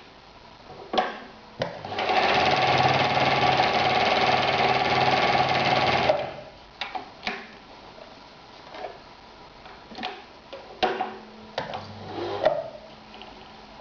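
Husqvarna 2760 sewing machine stitching through leather in one steady run of about four seconds, then stopping. Scattered clicks and knocks come before and after the run.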